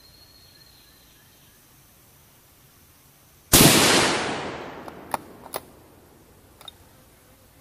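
A single shot from a 6mm Creedmoor bolt-action rifle about three and a half seconds in, its loud report dying away over about two seconds, followed by a few small clicks. It is the first shot through a freshly cleaned barrel with no carbon fouling.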